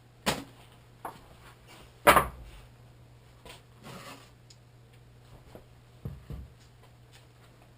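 Scattered knocks and clunks of support blocks being pulled out from under a motorcycle's swingarm and set down, the loudest about two seconds in.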